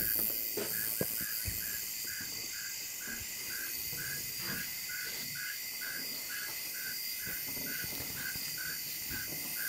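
Evening insect chorus of crickets: a steady high-pitched trilling with one chirp repeating a little over twice a second. A few faint knocks in the first couple of seconds.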